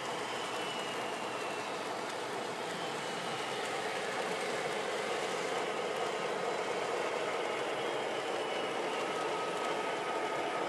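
Model trains running on the layout: a steady rumble of wheels on track.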